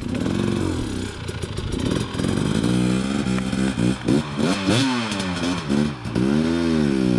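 KTM 300 XC-W two-stroke dirt bike engine revving, its pitch rising and falling over and over as the throttle is worked.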